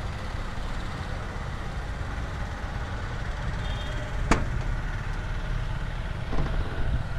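A single sharp click about four seconds in as the Maruti Suzuki Omni's front door latch is opened, over a steady low rumble.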